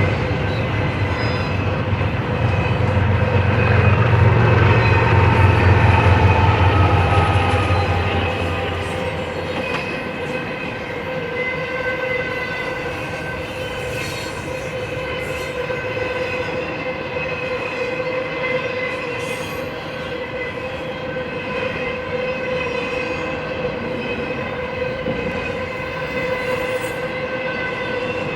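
BNSF intermodal freight train rolling past, its container cars clattering along the rails. A deep diesel locomotive rumble is loudest in the first few seconds and fades away by about nine seconds in, leaving steady high-pitched wheel squeal over the rolling noise of the cars.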